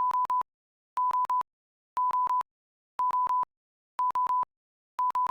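Countdown timer's electronic alarm going off at zero: four quick beeps at one steady pitch, repeating once a second, like a digital alarm clock.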